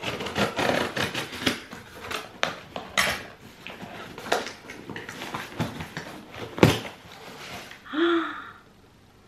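A cardboard parcel being torn open by hand: irregular ripping, rustling and crackling of box and packaging, then one sharp loud snap about two-thirds through. A short pained vocal cry follows a second later, after which it goes quiet.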